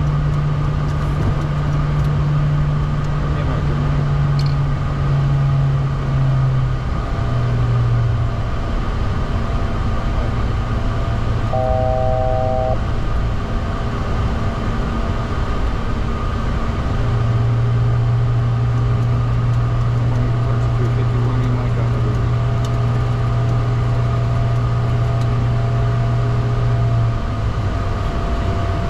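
Steady cockpit noise of a Bombardier Challenger 350 in its climb after takeoff: airflow and its two Honeywell HTF7350 turbofans, with a low drone that shifts in pitch a few times. About twelve seconds in, a short electronic chime of several tones sounds for about a second.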